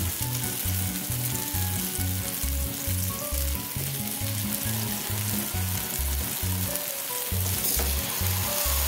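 Marinated paneer slices sizzling in hot oil on a flat tawa, with more slices laid down onto it, under background music with a steady bass beat.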